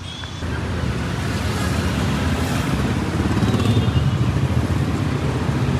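Motor vehicle running: a loud low rumble that steps up about half a second in and swells slightly over the next few seconds.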